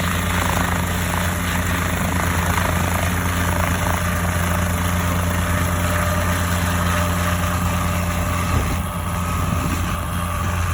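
Cabri G2 helicopter's rotor and piston engine running steadily, an even low drone with a brief click about eight and a half seconds in.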